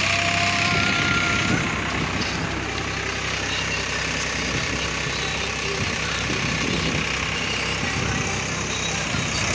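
Farm tractor engine running steadily, a little quieter after about two seconds.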